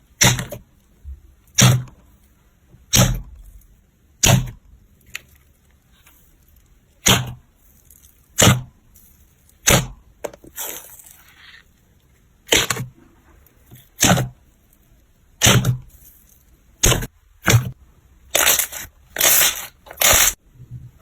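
Crunchy slime being pressed and squeezed by hand, crackling in short bursts about every second and a half, the squeezes coming quicker and longer near the end.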